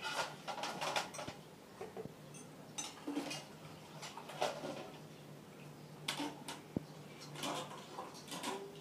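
A plastic packet crinkling and rustling in irregular bursts as a cat noses and feeds in it, over a steady low hum.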